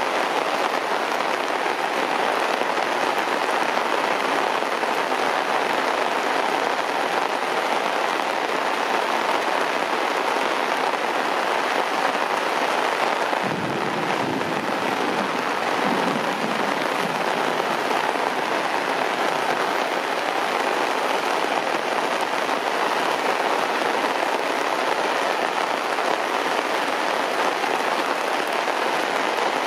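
Heavy rain falling steadily on grass and wet concrete, an even hiss of drops. About halfway through a low rumble swells and fades over a few seconds.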